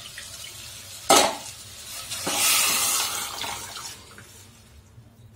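Cooked toor dal poured from a pressure cooker into a hot steel pot of sautéed vegetables. A sharp knock comes about a second in, then a wet splashing sizzle swells and fades over the next two seconds.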